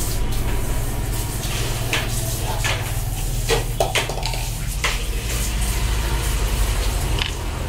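A few light plastic clicks and taps as a plastic LED bulb and a small glue tube are handled, over a steady low background hum.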